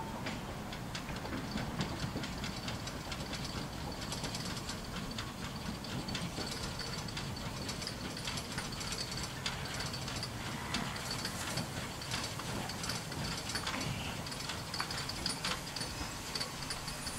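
Narrow-gauge GWR 2-6-2 side tank steam locomotive coming slowly into a station with its coaches, a steady clicking and clanking of running gear and wheels on the track, with a faint high squeal on and off.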